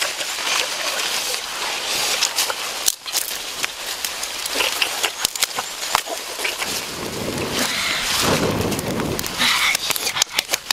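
Leafy branches rustling and dry leaves crackling as they are gathered and handled, with scattered sharp snaps and clicks throughout and a heavier rustling swell about seven to nine seconds in.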